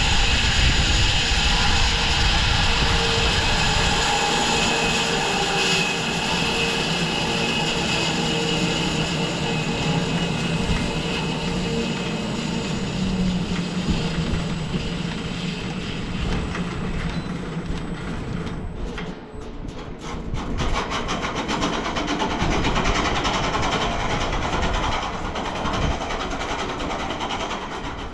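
Home-built 6-foot-wide bandsaw mill running, its blade sawing through a walnut log with a loud, steady mechanical drone. About two-thirds of the way through the sound dips briefly, then carries on with a changed character.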